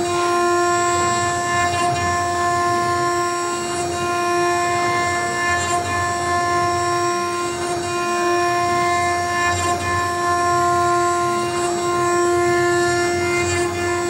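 CNC router spindle motor running with a steady, high-pitched whine that holds one pitch throughout, over a rough low rumble from the machine.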